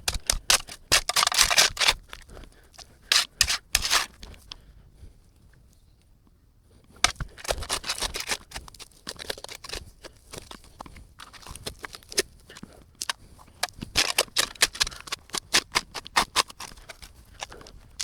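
A shovel digging into dirt in bouts of quick gritty scrapes and crunches, with a pause of a couple of seconds near the middle.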